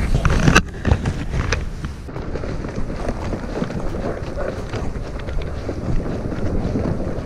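Wind buffeting the microphone outdoors. A louder stretch cuts off abruptly under a second in, then steady wind noise continues with faint footsteps on a frozen, snow-dusted dirt track.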